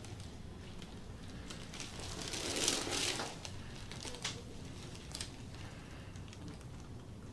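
Hands rubbing and pressing over clothing and the treatment table, a rustling friction noise that swells for about a second near three seconds in, with a few soft clicks afterwards.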